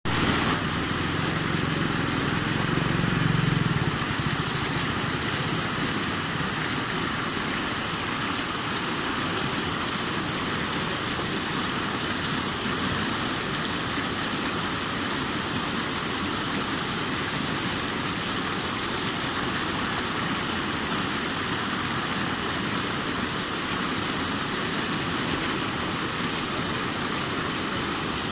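Muddy floodwater pouring over a concrete ledge and churning into foam below, a steady rushing hiss of falling water. A low rumble adds to it about two to four seconds in.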